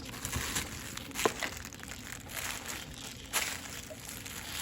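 Soft rustling and crinkling as a baby handles a toy book, with a few light clicks and knocks, two of them a little sharper: one about a second in and one about three seconds in.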